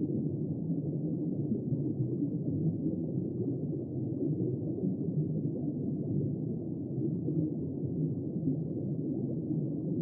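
Steady, muffled underwater rush of water, heard through a submerged camera housing: a low, even noise with no high sounds and no distinct calls or bubbles.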